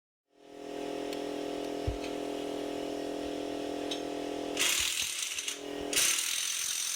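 Corded electric impact wrench starting up and running with a steady motor whine, then hammering in two loud stretches near the end.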